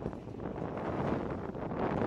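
Wind buffeting the microphone, a steady rumbling rush, with a military side-by-side utility vehicle running as it rolls off an aircraft's cargo ramp; the rumble grows a little louder toward the end.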